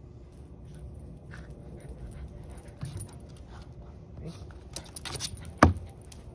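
A Cavalier King Charles spaniel scampers about on a lawn during a game of fetch, with light jingling and scuffling. Near the end there is one loud, sharp knock.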